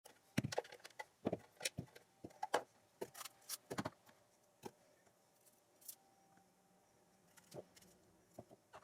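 Light clicks, taps and knocks of kitchen things being handled, quick and close together for the first four seconds, then only a few scattered taps.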